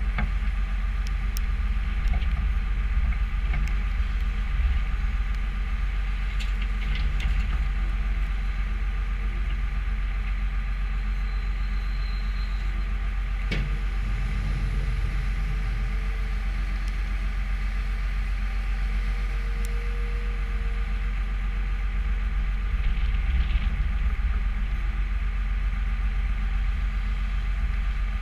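New Holland skid steer's diesel engine running steadily while loading a manure spreader, with a few sharp knocks, the loudest about halfway through.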